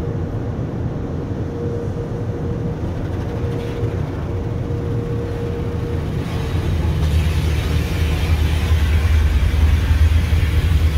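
Automatic tunnel car wash heard from inside the car: water spray and foam pouring over the body and glass over a steady low rumble, with a faint hum. About six seconds in, the spray grows louder and hissier as thick foam covers the windows.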